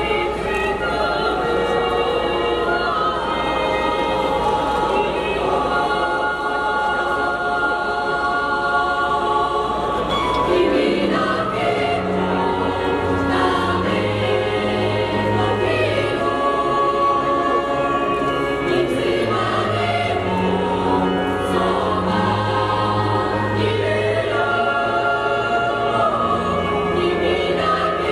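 Children's choir singing under a conductor, several voices in changing sustained lines. A low instrumental accompaniment of held bass notes comes in about eleven seconds in.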